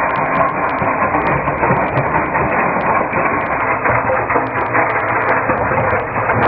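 Rock-crushing plant running: a rock crusher and belt conveyor give a loud, steady clatter, dense with many short sharp rattles of stone.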